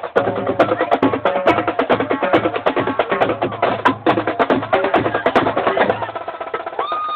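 High school marching band playing in the stands: horn lines over a steady drum beat with sharp, crisp percussion hits and a repeating low bass pulse. Near the end a single high note is held, then cut by a loud hit.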